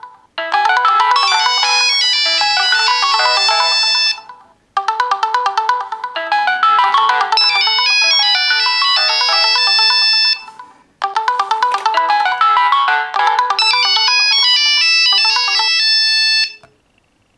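Mobile phones ringing at the same time, their electronic alarm and ringtone melodies playing over each other. The sound comes in three long phrases with short breaks between them and stops near the end.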